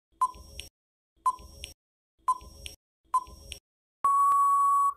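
Quiz countdown-timer sound effect: short beeps about once a second, four times, then a longer steady beep of about a second near the end, as the timer runs out.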